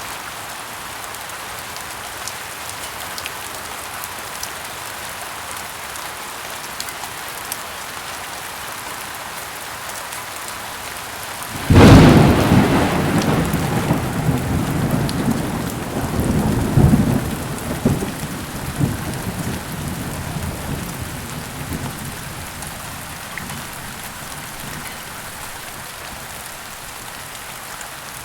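Steady heavy rain with a clap of thunder about twelve seconds in: a sudden sharp crack that rolls into a rumble with a couple of further surges, dying away after about ten seconds while the rain goes on.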